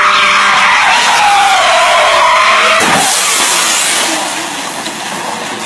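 Car tyres squealing in a long sideways skid, the squeal wavering in pitch, cut off about three seconds in by a crash: a sharp impact and then a rush of noise that dies away.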